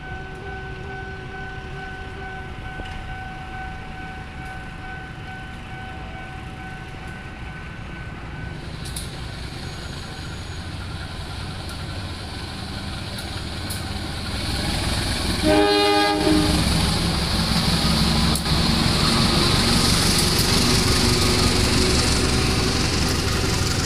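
A train passing over a level crossing. Its rumble builds from about halfway through, and a short horn blast sounds about two-thirds of the way in. Loud wheel and rail noise follows to the end.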